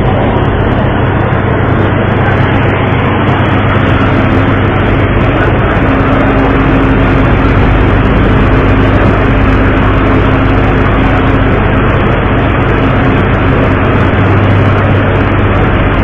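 A boat's engine running steadily, a low hum under loud wind and water rush. A faint higher steady tone comes in a few seconds in and fades out before the end.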